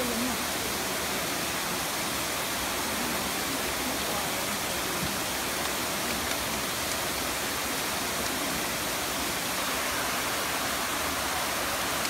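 Waterfall on the Neda River pouring into a pool: a steady, even rush of falling water.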